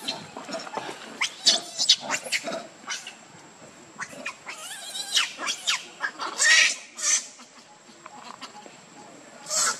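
Young pig-tailed macaques giving short, high-pitched squeals and chirps in quick succession, some rising in pitch, with the loudest calls coming later on.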